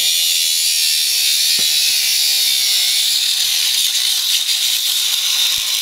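Electric angle grinder with a cutoff disc running steadily as it cuts into the metal of a Rohn tower section, a loud, even, high-pitched grinding hiss.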